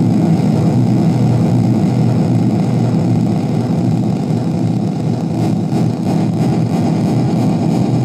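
Korg Monotron Delay analogue synthesizer putting out a dense, low, noisy drone as its knobs are turned. About five seconds in, the sound takes on a quick, even fluttering pulse.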